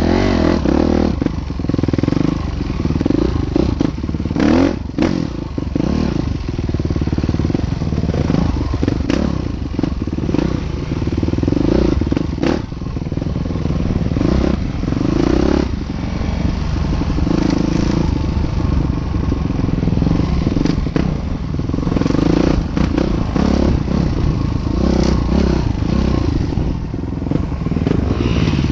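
Train crossing a railway bridge: a steady low rumble with irregular clanks and clicks throughout.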